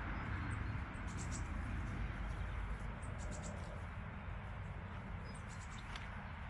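Outdoor ambience: a steady low rumble with faint, short, high squeaks or chirps in small clusters about a second in, around three seconds in and near the end.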